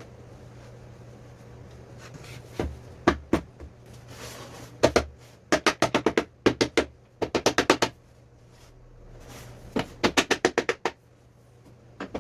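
Sharp knocks on wood: a few single ones, then quick runs of about five or six knocks a second, twice in the middle and once more near the end.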